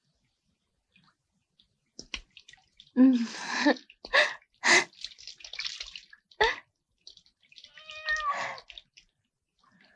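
Water poured from a plastic jug splashing in a series of bursts, with high cries mixed in: one falling at about three seconds in and a longer, curving one near the end.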